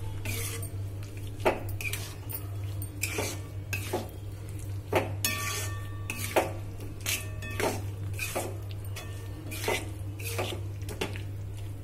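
Metal spatula stirring and scraping thick mango pickle around a metal wok, with repeated scrapes and clinks against the pan about once a second; a few strokes near the middle make the pan ring. A steady low hum runs underneath.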